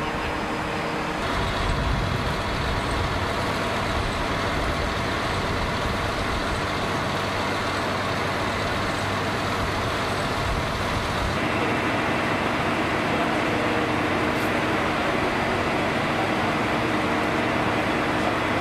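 Vehicle engines idling steadily: a constant noise with a few steady hum tones, which changes character about a second in and again about eleven seconds in.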